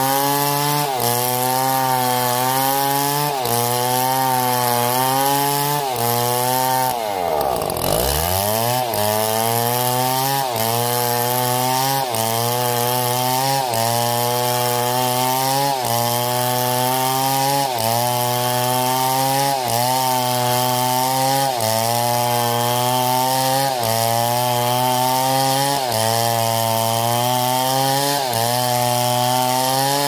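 Chainsaw cutting trembesi (rain tree) wood at high revs. The engine pitch sags and recovers about once a second as it works through the cut, with one deep drop in revs and a climb back about seven seconds in.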